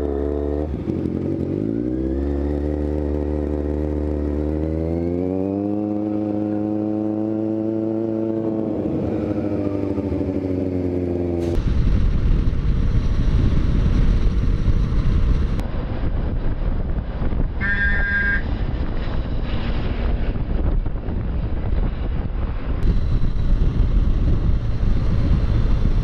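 Kawasaki Ninja 1000's inline-four engine climbing in pitch as the bike accelerates, then holding a steady note. After a cut, another motorcycle running at speed, its engine mixed with the even rush of wind over the microphone and somewhat louder, with a brief high tone around eighteen seconds in.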